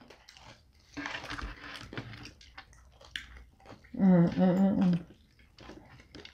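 Close-up chewing and biting of pizza, with many short wet smacks and crunches. About four seconds in, a short voiced sound lasting about a second, like a hummed 'mmm'.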